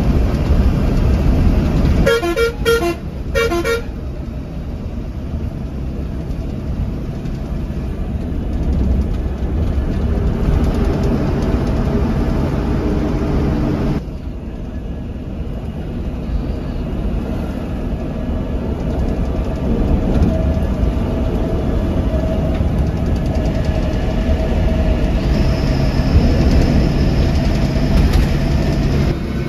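Bharat Benz bus running at speed, its engine and road noise a steady low rumble. About two seconds in, a horn gives a quick run of short toots.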